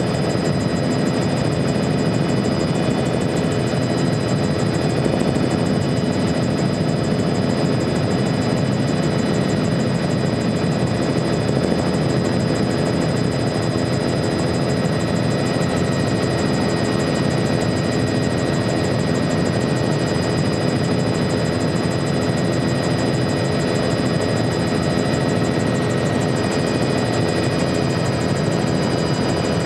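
Helicopter in cruising flight heard from inside the cabin: a steady engine and rotor drone with a thin high whine over it, unchanging throughout.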